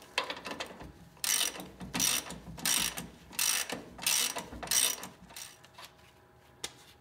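Socket ratchet clicking as it backs off the nut on a lower shock mount bolt, about six quick strokes in a row starting about a second in, then the clicking stops.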